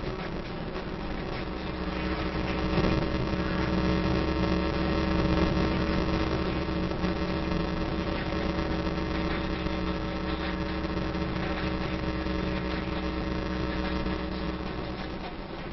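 Car engine and tyre noise heard from inside the cabin while driving at speed: a steady drone with a low engine hum, growing a little louder a couple of seconds in.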